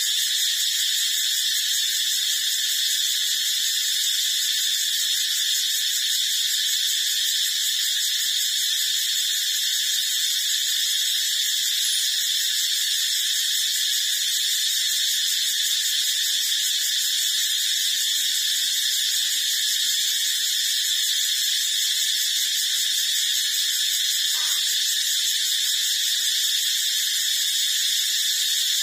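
A steady, unchanging high-pitched hiss with a whine in it.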